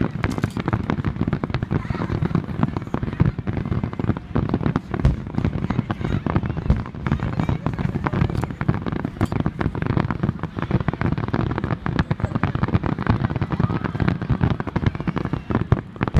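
Fireworks going off in a dense, continuous barrage: many overlapping bangs and crackles each second, with deep booms underneath.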